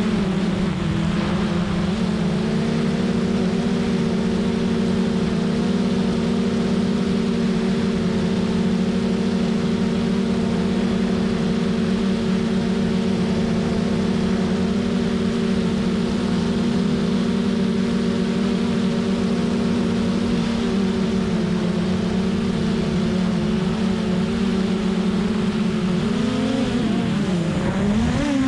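Hubsan Zino Pro quadcopter's four motors and propellers humming steadily in flight, heard close up from a GoPro mounted on top of the drone. Near the end the pitch wavers and shifts as the motors change speed in a turn.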